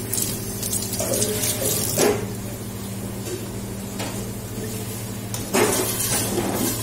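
Metal ladle stirring hot spiced oil in a steel saucepan, clinking and scraping against the pot near the end, over a steady low hum. Brief clatters come about two seconds in.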